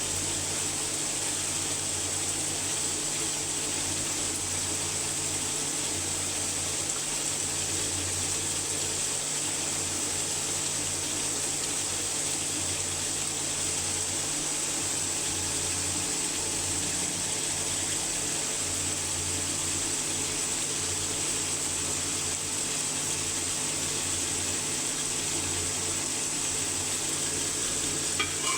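Chicken curry cooking in a pot on the stove: a steady, even hiss with a faint low hum under it.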